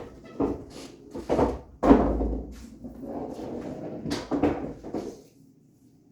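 Pool balls on an 8-foot bar-box table clacking and knocking, a string of sharp hits at uneven intervals, the loudest about two seconds in with a low rumble of a ball rolling after it.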